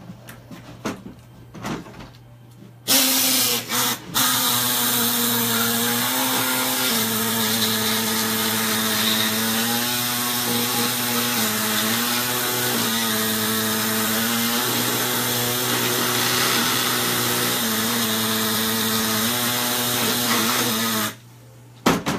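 Handheld power tool cutting. Its motor starts about three seconds in, pauses briefly, then runs steadily for about seventeen seconds, its pitch dipping now and then as it bites under load, and stops near the end.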